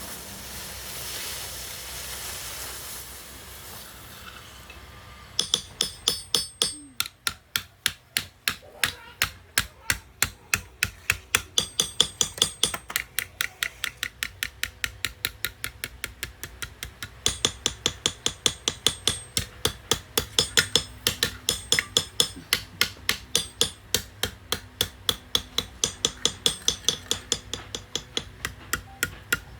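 A blacksmith's hammer striking metal on an anvil at a steady pace of about three blows a second, each blow ringing with a high metallic tone. The strikes start about five seconds in, after a few seconds of hiss.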